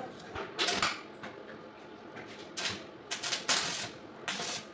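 Electric arc welding on a stainless-steel square-pipe railing joint: the arc crackles and sizzles in about five short bursts with brief pauses between them, as tack welds are struck.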